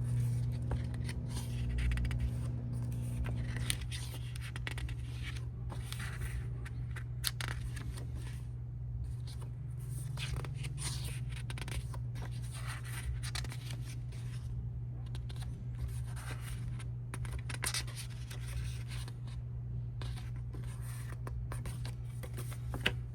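Pages of a paper album booklet being handled and turned: short, irregular dry rustles and scrapes over a steady low hum.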